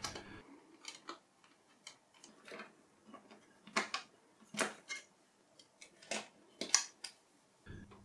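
Irregular light metallic clicks and taps of a short 3 mm hex key working the screws that hold a Mac Pro's CPU heatsink, about a dozen in all, with a few louder ones in the second half.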